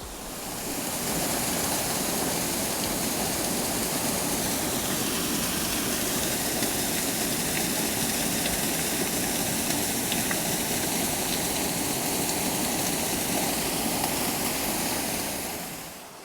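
A small waterfall pouring into a mountain river: a steady rush of falling and splashing water. It fades in over about the first second and fades out near the end.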